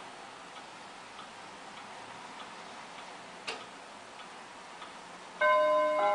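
German Jawaco carillon wall clock ticking steadily, about three ticks every two seconds, with one louder click about three and a half seconds in. Near the end its chime starts up with loud ringing bell notes, the first notes of a melody.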